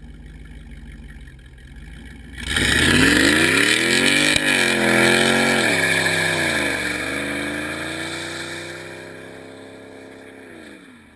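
Chevrolet Camaro Z28's V8 through a loud Borla exhaust idling, then revving hard about two seconds in as the car spins its rear tires and launches. The pitch climbs and drops twice at the upshifts, and the sound fades as the car pulls away into the distance.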